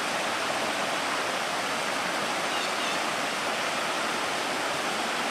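Waterfall and stream running high, a steady rushing hiss of falling water with no changes.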